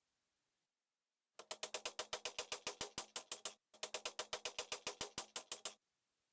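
Rapid, very regular clicking at about nine clicks a second, in two runs of about two seconds each with a brief break between them.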